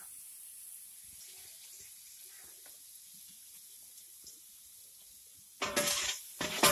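Faint, steady sizzle of chopped onions and meat frying in oil in a large aluminium cooking pot. About five and a half seconds in, loud metallic clattering and scraping as a long-handled metal ladle stirs against the pot.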